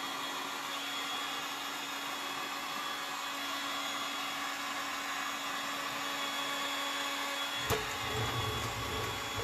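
Electric heat gun running steadily on its low setting, its fan giving a constant whining hum and hiss of blowing air as it is passed over decor paper to flatten the creases. A sharp click comes a little before the end, followed by a low rumble.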